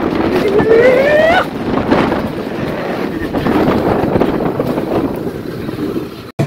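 Rail-guided bobsled sled running fast down its tubular steel track, with a steady rumble and rattle of wheels on the rails and wind buffeting the microphone. A rising whine is heard over the first second and a half, and the sound cuts off suddenly near the end.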